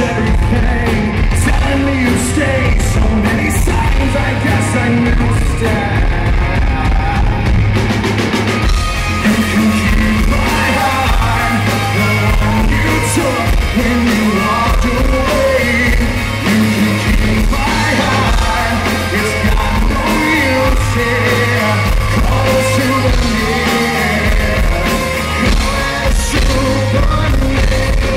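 Live rock band playing loudly: distorted electric guitars over bass and drums, amplified through a concert hall's sound system.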